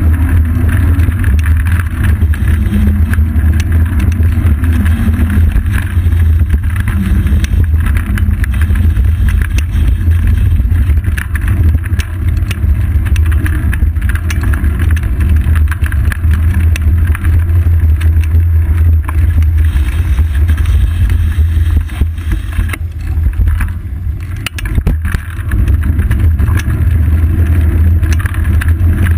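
Steady low rumble of wind buffeting and road vibration, picked up by a GoPro Hero 2 in its housing on a moving bicycle's seat post. It eases briefly about three quarters of the way through.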